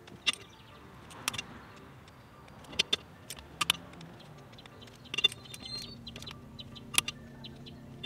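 Torque wrench and socket tightening a car's wheel lug nuts: sharp metallic clicks and clinks, spaced irregularly about a second or two apart, with a quick cluster of them about five seconds in.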